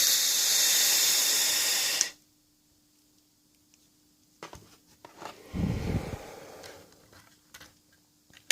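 Loud, breathy hiss of someone drawing on or blowing out a vape, cutting off about two seconds in. A few light clicks and a short low rumble follow near six seconds.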